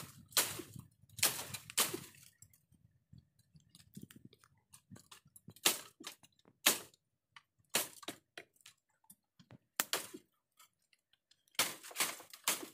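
Dry bamboo twigs and branches snapping as they are pulled and broken by hand: a string of sharp cracks at irregular intervals with short quiet gaps, bunched more closely near the end.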